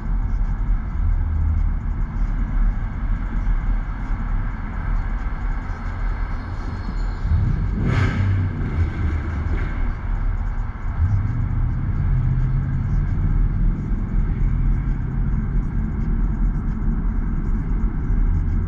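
Holden Commodore driving with a steady low engine and exhaust rumble. About eight seconds in, a brief loud whoosh passes, and from about eleven seconds the engine note rises a little as it pulls.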